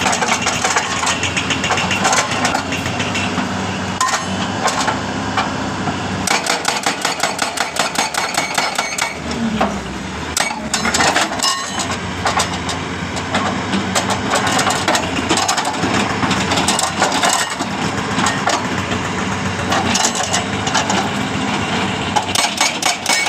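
Hitachi excavator's hydraulic breaker (jack hammer) pounding rock in rapid, continuous blows, with the excavator's diesel engine running underneath.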